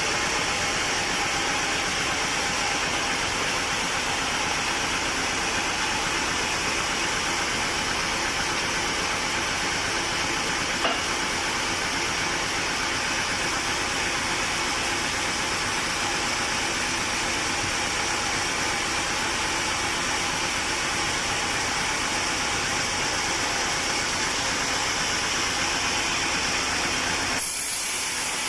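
Sawmill machinery running steadily, a continuous engine-like hum with hiss, with one small tick partway through and a sudden change in the sound near the end.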